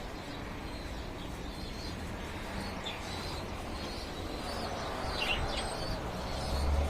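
A few short, high chirps from birds, the clearest about three and five seconds in, over a steady low rumble of wind that swells near the end.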